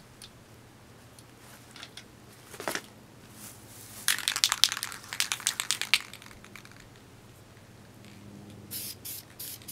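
Crinkling and rustling as the cardboard and scooter deck are handled, then an aerosol spray-paint can being shaken near the end, its mixing ball rattling in quick, regular strokes about four times a second.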